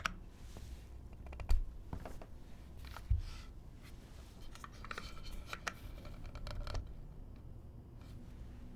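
Sparse, faint handling sounds of the plateless ASCII-F keyboard with Cherry MX Black switches just after typing stops: two low thumps about 1.5 and 3 seconds in, a short run of light clicks between about 5 and 7 seconds, then quiet room tone.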